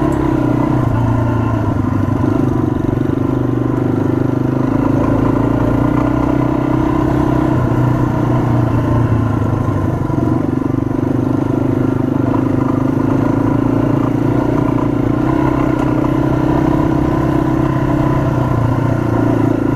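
Yamaha XT250's single-cylinder engine running steadily while riding a dirt road, heard from the bike itself, its note wavering slightly with the throttle.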